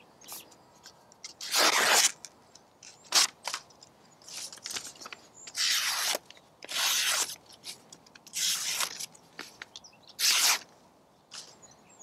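Stainless knife blade slicing through a strip of paper in about seven separate strokes, each a short rasping swish, the longest about two seconds in. The slicing is a test of how sharp the edge still is after carving dry blackthorn.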